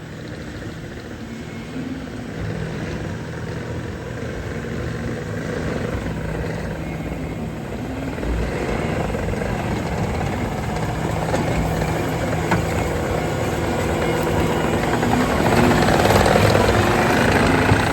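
Tractor engine running steadily and growing louder as it approaches.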